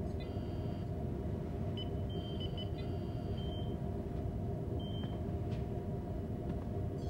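Steady low rumbling drone with short, high electronic beeps and chirps three times in the first half.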